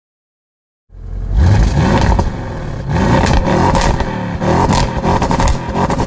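Audi RS6's 4.0-litre twin-turbo V8 revved through the exhausts. It comes in suddenly after about a second of silence, then rises and falls in about four rev blips, with sharp cracks and pops between them.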